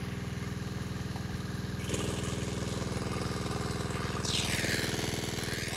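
A small engine running steadily with an even, fast chugging beat. About four seconds in, a brief high sweeping sound rises and falls over it.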